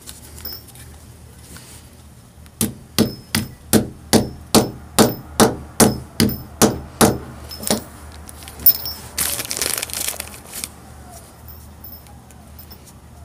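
Hammer setting a two-piece brass rivet through a leather belt strap: about a dozen quick metallic taps, roughly two and a half a second, each with a short ring, then one last tap.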